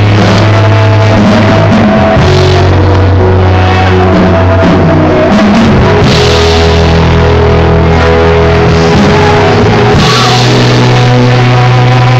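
Live rock band playing loud amplified music: drum kit, electric guitars and keyboard, with held low notes that change every few seconds.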